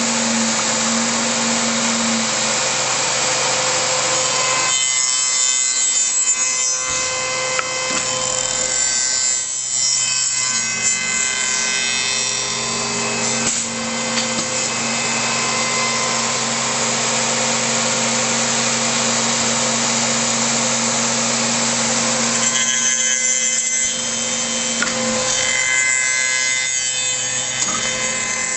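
MX3810B tenoning machine running, its cutters machining tenons in wooden chair parts: a continuous loud cutting noise over a steady motor hum, easing off for a second or two a few times.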